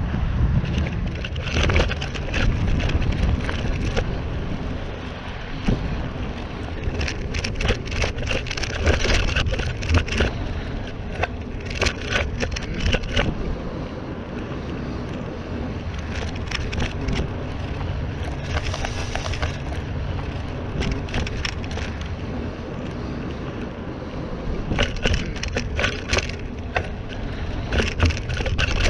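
Mountain bike riding over a dirt trail: the steady rumble of wind on the microphone, broken by repeated spells of rattling and clicking as the bike and tyres go over rough ground.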